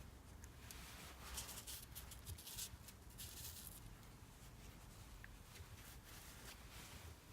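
Faint rustling and scratching of fingers working a thin copper wire strand, wrapping it around a splice of stranded cables, in short bursts over the first half, over a low steady room hum.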